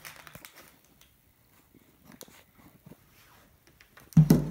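Faint rustling and small knocks as a cardboard shipping tube is handled, then a loud sudden thud about four seconds in.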